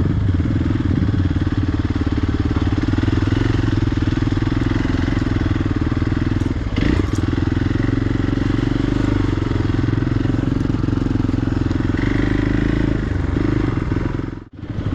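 Hero XPulse single-cylinder motorcycle engine running steadily, held at an even throttle while riding slowly over rough ground. There is a short knock about seven seconds in, and the sound drops out briefly near the end.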